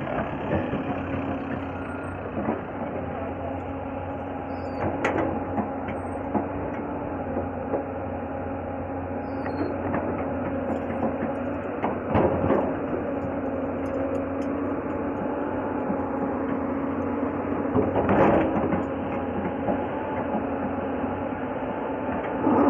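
Hyundai R220-9SH hydraulic excavator's diesel engine running steadily under load as it digs, with three louder knocks from the bucket working the soil.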